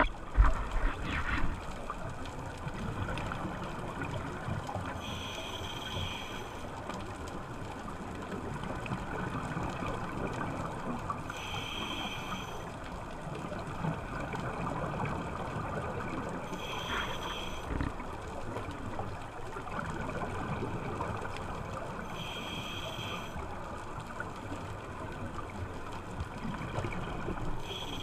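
Scuba diver's regulator breathing underwater: a short hissing, bubbling burst about every five to six seconds over a steady low rush of water. A few loud knocks in the first second and a half are the loudest sounds.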